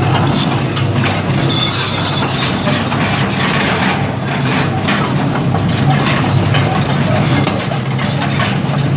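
1998 Hitachi EX200LC-5 excavator travelling on its steel triple-grouser tracks: its Isuzu six-cylinder turbo diesel runs steadily under rapid, irregular clanking and squeaking of the track links and pads.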